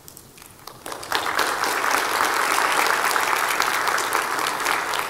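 Audience applauding, with the clapping starting about a second in and then holding steady.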